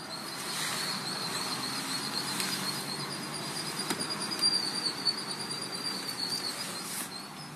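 Mercedes-Benz ML350 (W163) making an unexplained high-pitched warbling whine that holds for about seven seconds before fading, with a faint low rumble beneath and a single click about four seconds in.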